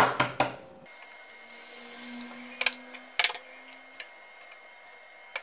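Eggs being cracked on the rim of a blender jar and dropped in onto oil: a few sharp taps right at the start, then a louder cluster of taps about three seconds in.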